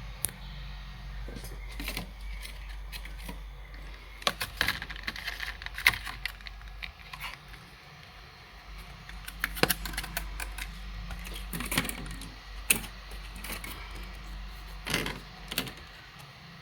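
Irregular clicks and light clatter of a laptop being handled, hard parts knocking and snapping together, in small clusters with short pauses between.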